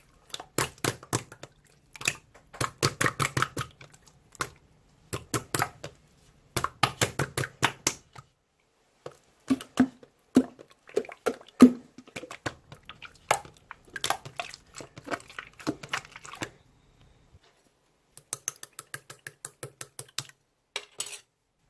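Slime being squeezed and kneaded by hand, giving rapid runs of small crackling clicks and pops in bursts of a second or two, with short pauses between.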